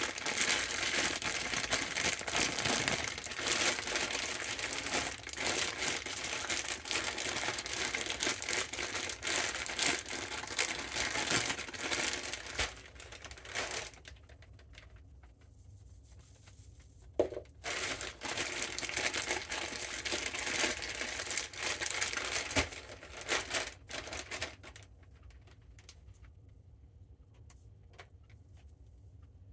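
Crinkly material being handled, rustling and crackling in two long stretches with a quieter pause between, and one sharp knock in the pause.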